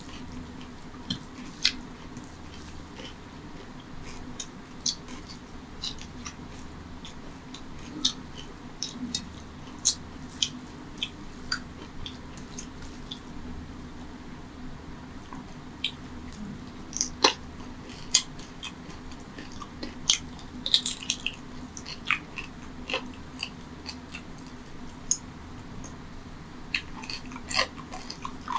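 Close-up eating sounds of mutton curry and rice eaten by hand: wet chewing with irregular sharp mouth smacks and clicks, mixed with fingers squishing rice and gravy on a steel plate.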